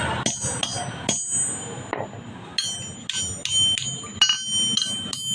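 Hammer blows on steel against an anvil, each strike ringing out clearly, coming roughly two or three a second with a short pause partway through, as the spear is forged by hand.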